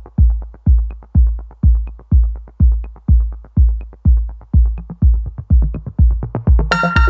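Electronic dance music with a steady four-on-the-floor kick drum at about two beats a second; a synth chord comes in near the end.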